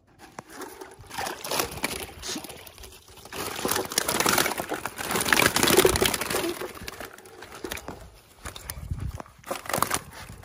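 Water sloshing and splashing as a wire-mesh fish basket full of crappie and white bass is hauled up out of the lake, water streaming off through the mesh; loudest about halfway through.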